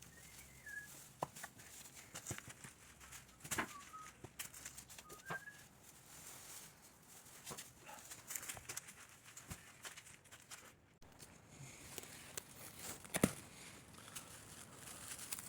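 Faint, scattered clicks and knocks of work in a barn, with a few short bird chirps near the start and about four and five seconds in.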